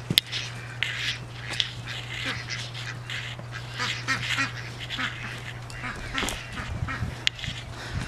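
Domestic fowl calling again and again, many short calls in quick succession and overlapping, over a steady low hum.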